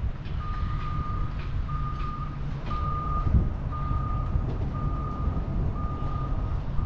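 A vehicle's reversing alarm beeping at one steady pitch, about once a second, starting about half a second in. Underneath is the low rumble of road and wind noise from the car driving.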